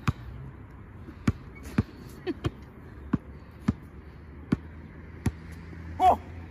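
A basketball dribbled on an outdoor asphalt court: about nine sharp bounces at an uneven pace as the player handles the ball against a defender. Near the end comes a short, loud, high-pitched sound.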